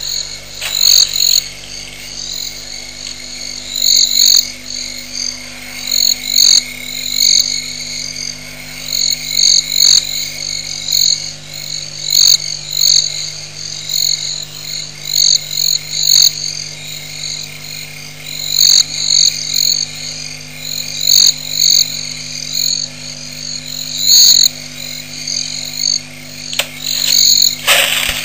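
Frogs calling at a waterhole at night: short high-pitched calls repeating every second or two, often in pairs, over a steady low hum.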